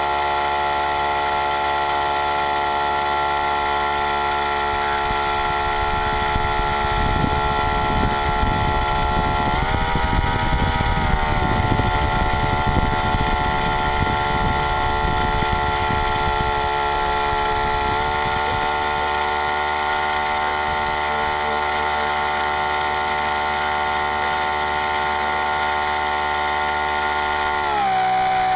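RC model boat's motor running steadily close to the deck-mounted camera, its pitch stepping up as the throttle is opened about ten seconds in and again a little later, then dipping sharply and climbing back near the end. A rush of water against the hull sounds under it for several seconds in the middle.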